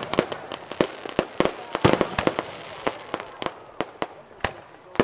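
Aerial fireworks bursting: a rapid string of sharp bangs and crackles that thins out to single bangs about every half second in the second half.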